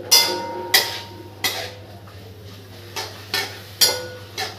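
A flat metal spatula scrapes and clanks against a metal kadhai while stirring chickpeas in a little water. There are three sharp scrapes in the first second and a half, a pause, then four more in quick succession near the end.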